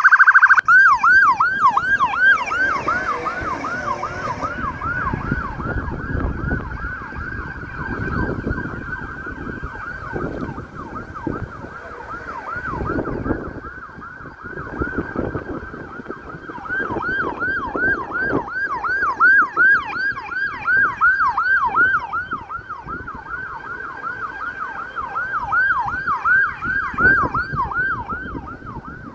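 Police patrol car siren on a fast yelp, its pitch rising and falling several times a second. It is loudest at the start, fades somewhat as the car moves off, and grows louder again in the second half. Engine and tyre noise of the car working through the cone course swells and falls underneath.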